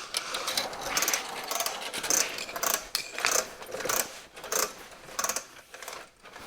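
Ratchet of an automatic retracting air-hose reel clicking irregularly as the hose is pulled out and worked to make it lock.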